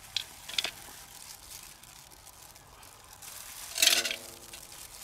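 Light clicks of chicken wings being handled and set onto a round metal tray over a charcoal pit, with a brief louder sound about four seconds in.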